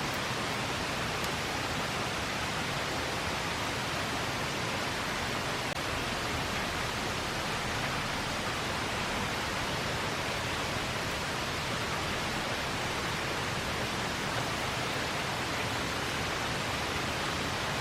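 A river rushing: a steady, even hiss of flowing water.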